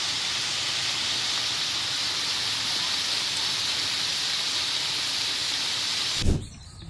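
Steady, loud rushing hiss of a heavy hailstorm, which stops abruptly about six seconds in with a single low thump.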